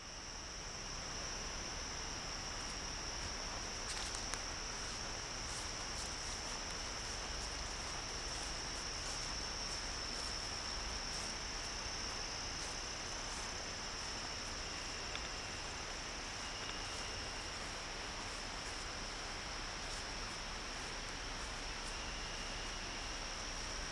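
Insects trilling in a steady, high-pitched, unbroken drone that holds one pitch throughout.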